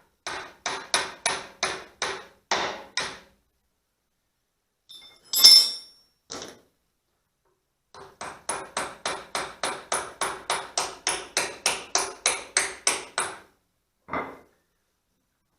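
Hammer striking steel in quick runs of ringing blows, about four a second, with one louder clank about five seconds in: knocking a pivot pin out of a backhoe hydraulic cylinder.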